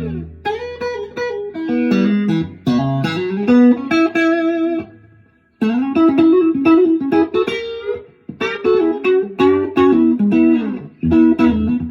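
1968 Fender Telecaster electric guitar played through a Vox AC15 valve amp: picked melodic lines and chords. The playing stops briefly about five seconds in, then starts again.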